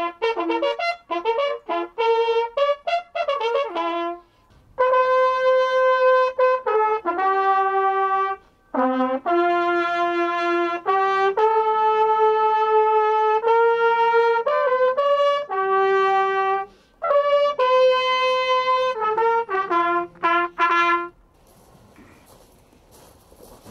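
A military bugle call played in unison by several bugles and valved trumpets. It opens with quick runs of notes, moves into long held notes, returns to quick notes, and ends about 21 seconds in.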